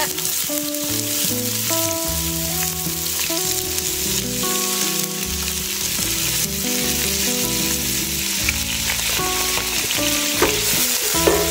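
Chopped onions sizzling and frying steadily in hot oil in a pot, just added to the oil.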